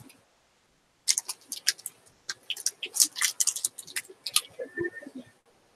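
Quick, irregular crackling and clicking of a Fruit by the Foot roll and its wrapper being handled and unrolled, lasting about four seconds and stopping shortly before the end.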